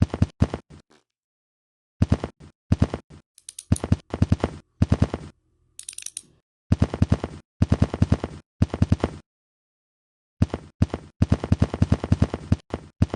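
Bursts of rapid, evenly spaced sharp cracks, about a dozen a second, each burst cut off abruptly into dead silence, like machine-gun sound effects edited together. A brief low hum with a high hiss joins in around a third of the way through and again near the middle.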